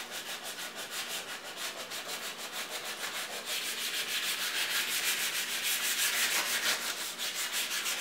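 Sandpaper (240 grit) rubbed by hand in quick, even back-and-forth strokes over a painted microwave door, scuffing off the old red spray paint. The strokes grow a little louder a few seconds in.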